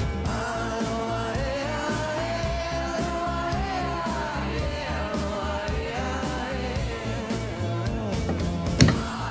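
Background music: a song with a sung melody over a steady beat, with a sharp loud hit near the end.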